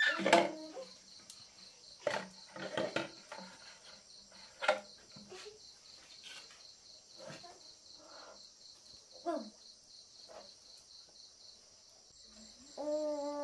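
Insects chirping in a steady, high, rapidly pulsing trill, with brief voice-like calls breaking in now and then and a longer one near the end.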